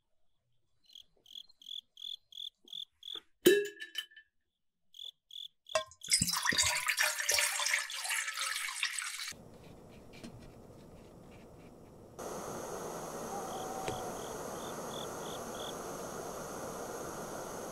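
Crickets chirping at about three chirps a second, broken by one sharp tap. Then fresh water is poured from a glass bottle into a wok, splashing loudly for about three seconds. A quieter hiss follows, and from about twelve seconds in there is the steady hiss of water boiling under a cloth-lined steamer, with a short run of cricket chirps over it.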